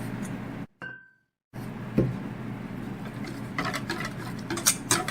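Utensil clinking and tapping against a mixing bowl while batter is mixed: a single knock about two seconds in, then a run of quick light taps and clinks later on. The sound cuts out completely for about a second near the start.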